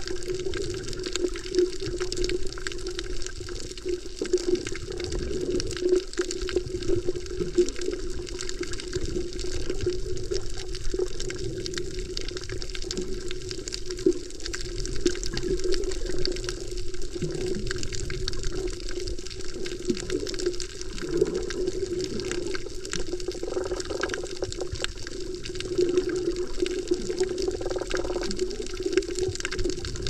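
Underwater sound from a camera submerged over a coral reef: a steady muffled wash of water with a constant fine crackle of tiny clicks.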